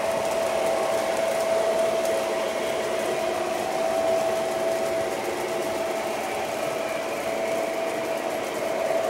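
O gauge electric model trains running on three-rail track: a steady motor-and-wheel whir with a constant whine through it.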